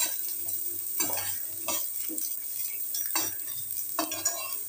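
A metal spoon stirring and scraping chopped coconut and dried red chillies around a dry, oil-free pan. It makes repeated short scrapes about once a second over a steady faint hiss, as the ingredients are dry-roasted.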